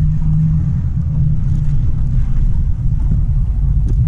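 Steady low rumble of a car's engine and tyres on a rain-wet road, heard from inside the cabin.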